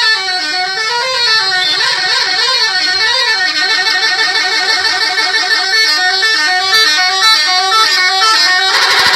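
Multi-tone 'telolet' musical air horn of a Rosalia Indah bus playing a tune: the notes sweep up and down for the first few seconds, then alternate rapidly between two notes until, just before the end, the horn switches to a different tone.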